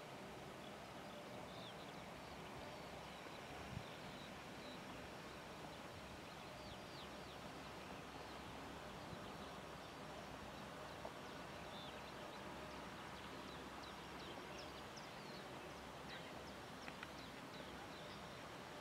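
Faint outdoor ambience: a steady low hiss with scattered short, high chirps of small birds.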